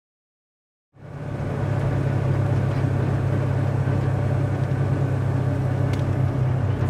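Steady low rumble of a vehicle driving along a gravel road, fading in about a second in.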